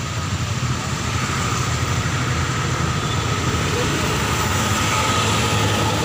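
Steady engine and road noise of a moving vehicle heard from on board, a low rumble under a wide hiss with a faint steady whine.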